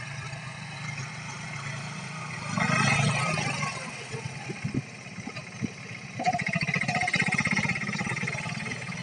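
Mahindra mini tractor's diesel engine running steadily under load as it pulls a tined cultivator through ploughed soil, its firing pulses clearly audible; it swells louder about three seconds in.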